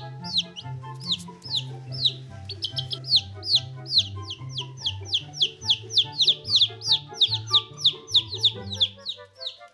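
Baby chicks peeping: a steady stream of short, high, falling chirps, about four a second. Background music with a bass line plays under them.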